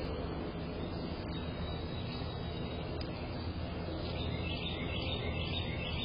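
Steady low background rumble, with a faint run of quick, high bird chirps repeating from about four seconds in.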